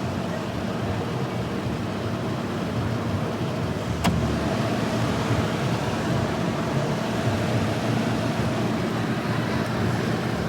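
Vintage GM Frigidaire 18,700 BTU room air conditioner running, its fan and compressor making a steady blowing hum. A single sharp click comes about four seconds in.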